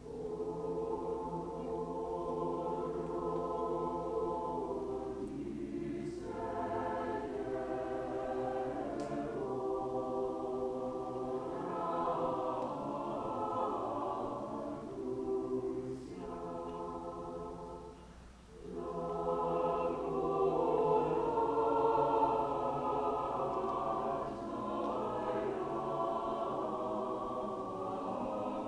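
Mixed-voice choir singing sustained chords in long phrases. It comes in at the start, breaks off briefly about two-thirds of the way through, then resumes louder.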